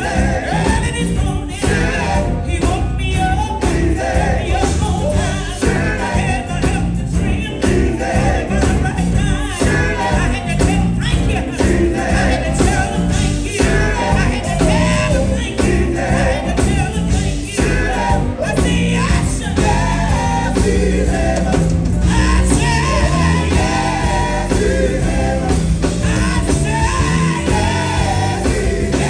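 Gospel singing with band accompaniment: voices over heavy bass and a steady drum beat.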